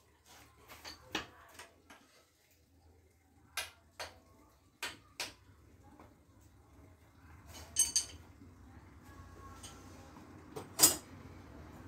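Irregular metallic clinks and knocks of hard objects being handled, with a pair of clicks about eight seconds in and the loudest knock near the end.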